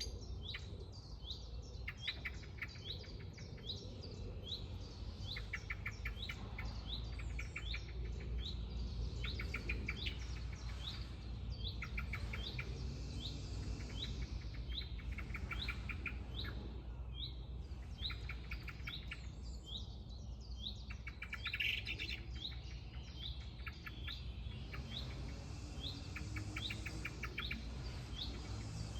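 Songbirds singing: a high chirping note repeated steadily, about one and a half times a second, with short fast trills breaking in every few seconds. A low steady rumble runs underneath.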